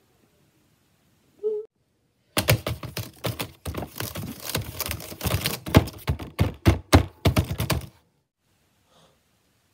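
Fast, hard typing on an HP laptop keyboard: a dense, uneven run of key clicks and thumps that starts about two seconds in and stops abruptly about five and a half seconds later.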